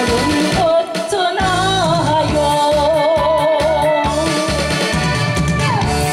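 A woman singing a Korean oldies song live through a microphone and PA over a backing track with a steady beat, holding notes with a wide vibrato. Her voice is affected by a cold that is taking her voice away.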